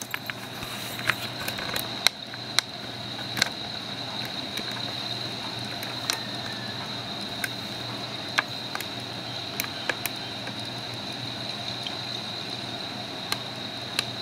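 A metal serving spoon clicking lightly against glass bowls a dozen or so times as chopped fruit salad is spooned from a mixing bowl into a cut-glass serving bowl, over a steady background hum with a thin high whine.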